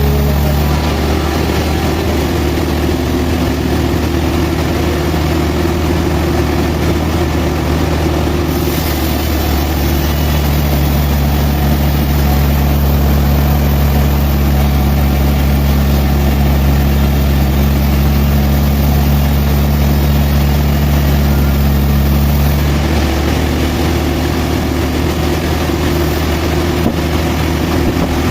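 Sawmill machinery's engine running steadily with a deep hum, its note shifting slightly about nine seconds in and again near the end.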